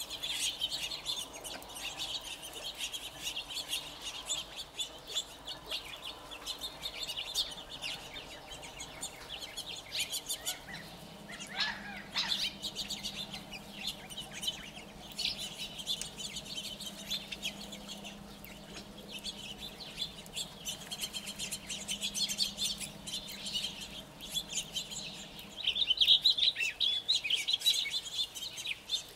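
A covey of quail foraging and keeping up a steady stream of soft, quick overlapping chirps and ticks, the contact calls of a feeding flock, with a louder flurry of calls near the end.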